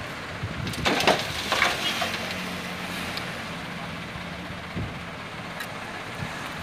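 Light dump truck's diesel engine running at idle, with a few sharp scrapes and knocks of a hoe digging into dumped fill soil and stones, the clearest about a second in.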